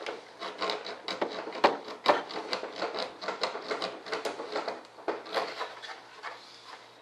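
Hands working inside an RC jet airframe: irregular rubbing and scraping with many small clicks and knocks.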